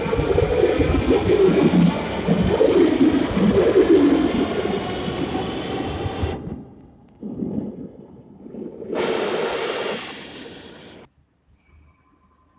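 Rusich metro train pulling out of the station: traction motors whining in several tones over wheel-and-rail rumble, loud at first and ending about six seconds in as the train leaves. About nine seconds in a short burst of hiss follows, cutting off suddenly a couple of seconds later.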